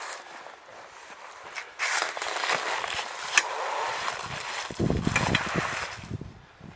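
Rustling and clattering as trampoline parts are handled and taken down, with a sharp click about three and a half seconds in and low thumping noises near the end.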